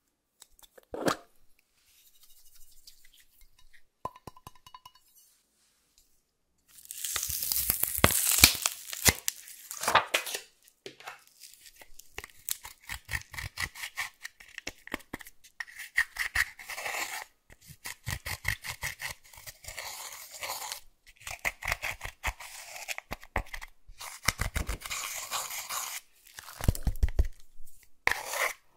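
A metal-tipped dotting tool scraping and crushing pressed eyeshadow in a palette pan: a dense run of quick scratchy, crunchy strokes that starts about seven seconds in. Before that there is a single click and some faint handling.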